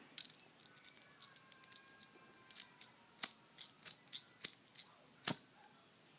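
A regular lighter clicking, a run of about a dozen sharp clicks, faint at first and louder from about three seconds in, with the loudest one a little after five seconds.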